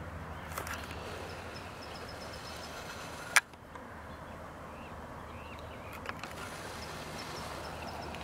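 Steady low hum of an idling vehicle engine, with faint high chirps of birds and one sharp click about three and a half seconds in.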